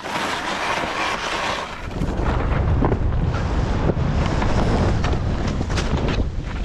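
Wind rushing over the camera's microphone at skiing speed, with Atomic Bent Chetler 100 skis hissing and scraping through powder snow, broken by short thuds from the turns and bumps.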